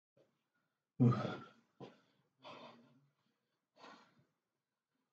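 A man sighing and breathing hard, winded after a cardio workout: one loud, partly voiced sigh about a second in, then three quieter breaths.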